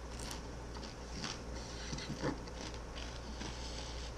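Soft mouth sounds of someone tasting pepper powder: a few quiet lip smacks and chewing noises about a second apart, over a low steady room hum.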